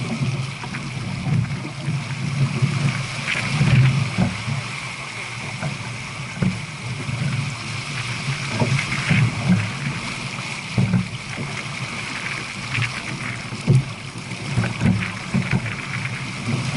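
Water rushing and splashing past the hull of a J/24 sailboat running downwind at about 7 knots, steady throughout, broken by irregular low thumps and short splashes.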